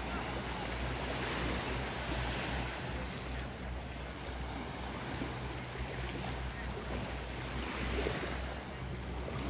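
Beach ambience: small waves washing on the shore and wind, over a steady low engine hum from a boat.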